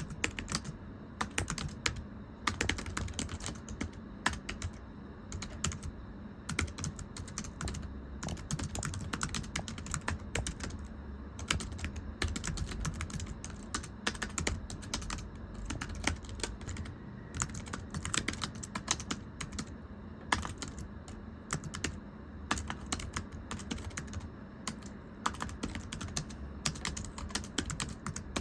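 Typing on a very thin, low-profile computer keyboard: a rapid, uneven run of light, flat, slapping key clicks, with a few brief pauses between bursts.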